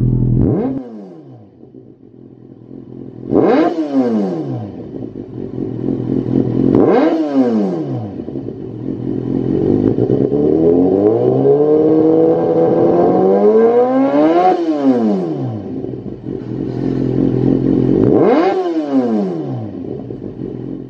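Kawasaki Z800's inline-four engine through a Lextek GP1 slip-on silencer, idling and blipped on the throttle. Four quick revs rise sharply and fall straight back to idle, and in the middle one longer rev climbs slowly for several seconds before dropping back.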